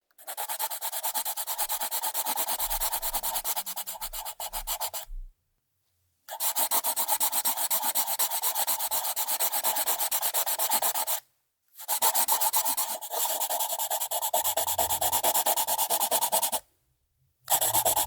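Pencil writing on paper: dense, rapid scratching of the graphite point in runs of about five seconds each, broken by three short pauses.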